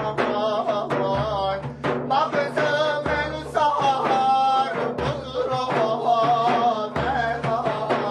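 A man sings a Sufi dervish devotional chant in a high, strained, ornamented voice. A large frame drum gives a deep beat about every two seconds.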